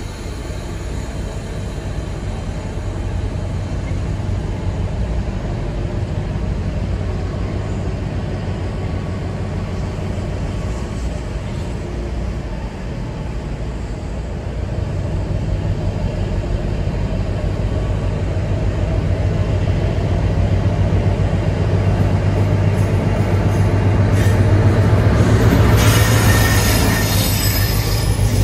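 Class 60 diesel locomotive's eight-cylinder Mirrlees engine running with a steady low drone, which grows louder from about halfway through as the locomotive draws in. Near the end, as it comes close alongside, there is a squeal of wheels on the rails with a hiss.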